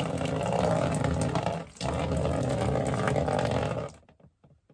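Water poured out of a drinking glass, splashing in a continuous rush with a brief break about halfway, stopping suddenly about four seconds in.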